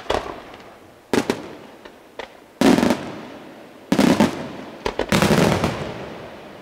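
Aerial fireworks shells bursting in quick clusters: sharp, loud bangs at the start, about a second in, and around two and a half, four and five seconds in, each trailing off in an echoing rumble.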